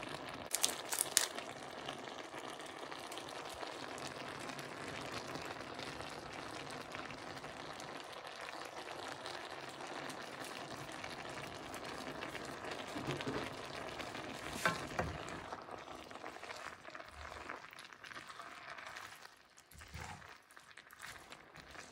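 Diced vegetables and prawns sizzling in a frying pan, a steady frying hiss that dies down over the last few seconds. A few sharp clicks about a second in, and a wooden spatula stirs the pan near the end.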